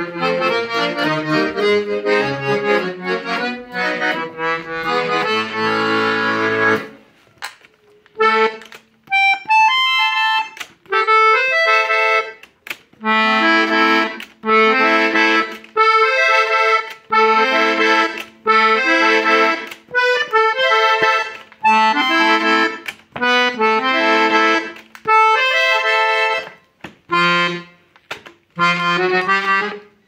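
Hohner Atlantic IV de Luxe piano accordion being played: about seven seconds of continuous melody over bass and chords, then a short break and a run of short, separated chords and notes with brief gaps between them.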